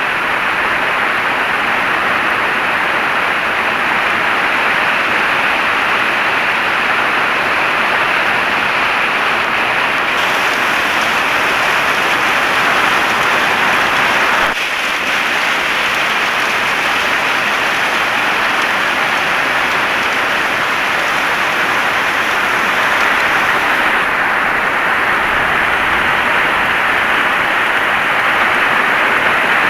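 Heavy rain falling steadily, an even, dense hiss of drops.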